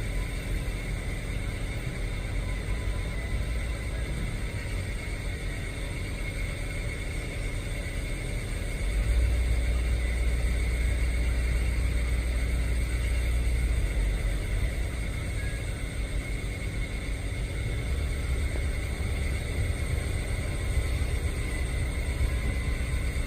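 Low, steady rumble of a diesel switching locomotive working, louder for several seconds in the middle, over a constant high whine of industrial plant machinery.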